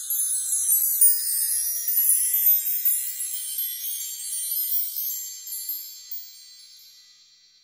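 Chimes tinkling: a dense cluster of high ringing notes that thins out after about three seconds and rings away, fading out near the end.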